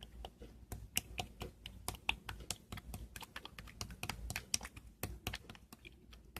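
Typing on a keyboard: rapid, irregular keystroke clicks, several a second.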